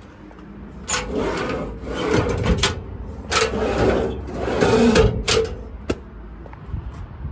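Two long scraping rubs, each lasting about two seconds, the second starting about a second after the first ends, followed by a few faint knocks.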